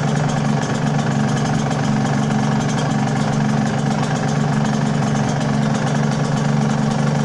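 Yamaha TZM 150's liquid-cooled two-stroke single-cylinder engine idling steadily, running again on its first start after ten years laid up.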